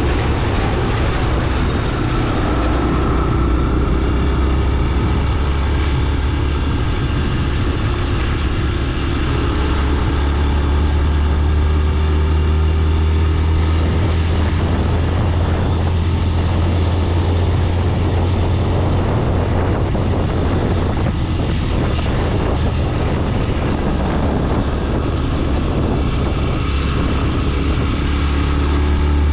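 Steady low drone of a vehicle's engine and tyre noise, heard from on board a moving vehicle.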